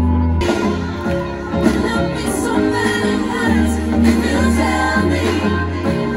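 Live band music with a group of singers, heard from the crowd. The music changes abruptly about half a second in, to a fuller passage with voices.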